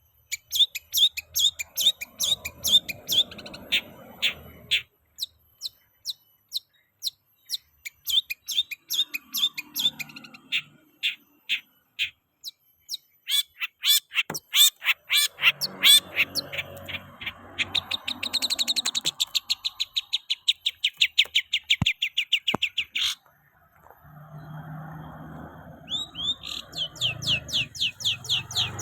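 Kept songbird chirping in quick series of short high notes, pausing now and then, with a fast, dense trill about two-thirds of the way through.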